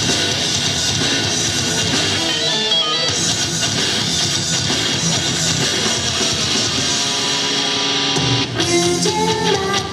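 Loud rock-style backing music with electric guitar, steady throughout; about eight and a half seconds in it dips briefly, then carries on with a clear melody line over an even beat.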